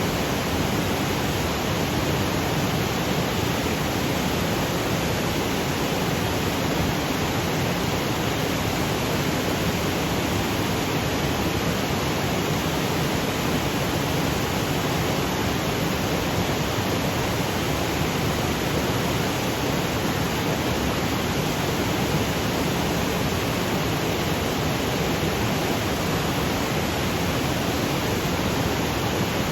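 Waterfall cascading over granite boulders: a steady, unbroken rush of water.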